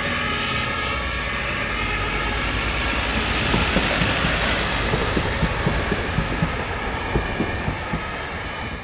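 Fire engines' compressed-air warning horns sounding, then fading over the first couple of seconds, as a heavy fire truck drives past with engine and tyre noise and a run of low thumps that peaks in the middle and eases off near the end.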